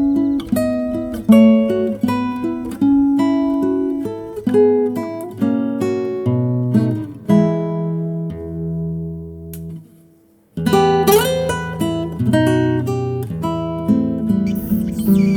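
Instrumental acoustic guitar music with plucked notes; about seven seconds in a chord rings out and fades to a brief pause, then the playing resumes.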